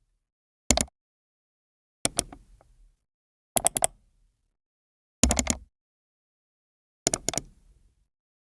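Five short click sound effects about a second and a half apart, each a quick cluster of two to four sharp clicks, with dead silence between them.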